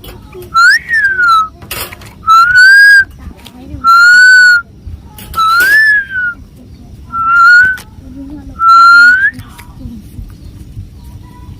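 A series of six loud whistled notes, each under a second long and about one and a half seconds apart, some rising in pitch and some rising then falling.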